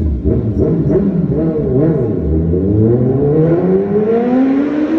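Superbike engine revving, its pitch rising and falling in quick blips, then climbing steadily through the second half as it accelerates.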